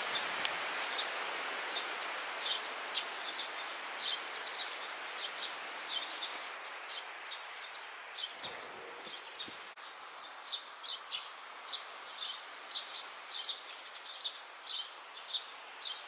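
Eurasian tree sparrow chirping: short, high, sharp chirps repeated about one and a half times a second, steadily throughout.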